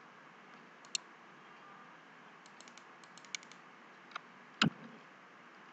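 Scattered clicks of a computer keyboard and mouse over a faint hiss, a few light taps in the middle and one louder knock about three-quarters of the way through.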